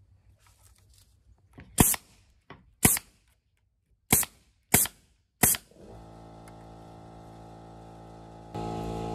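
Pneumatic staple gun firing five times, driving heavy-gauge 1-inch staples through batten strip into wood: two shots about a second apart, then three quicker ones. Background music comes in just after the last shot and gets louder near the end.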